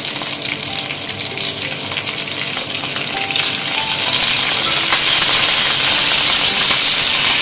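A tempering of garlic cloves, curry leaves and dals sizzling in a little olive oil in a pan, stirred with a wooden spatula. The sizzle grows louder from about four seconds in.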